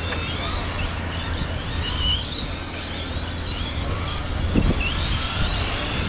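Several radio-controlled Euro Truck racers running, their electric motors and gears whining and sliding up and down in pitch as they accelerate and brake, over a steady low rumble.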